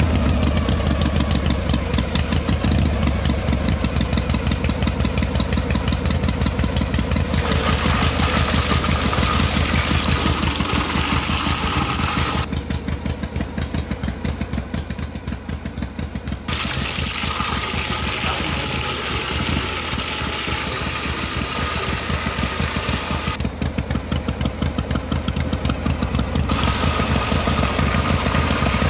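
Miniature model engine running steadily with a fast, even pulse, driving a belt. Its tone shifts abruptly a few times.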